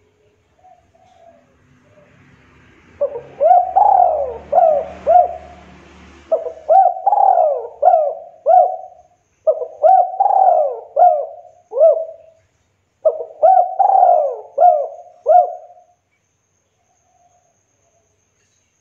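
Spotted dove cooing: four phrases of several quick repeated coo notes each, separated by short pauses, the first starting about three seconds in.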